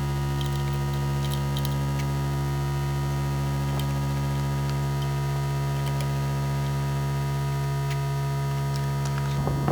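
A steady, unchanging electrical hum, with a few faint ticks.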